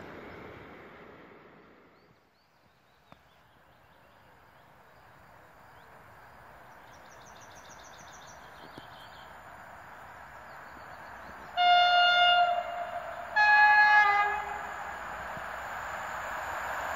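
Approaching train's locomotive sounds two horn blasts, the second higher-pitched, over a rumble that grows louder as the train nears. Before that, a fading rumble of a freight train running away.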